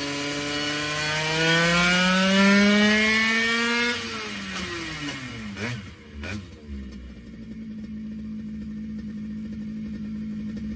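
Liquid-cooled 70cc TRD two-stroke moped engine with a Stage6 exhaust, on a dyno at full throttle. The revs climb steadily for about three seconds, then the throttle shuts and the revs fall away quickly with two sharp knocks. It then settles into a steady lower hum.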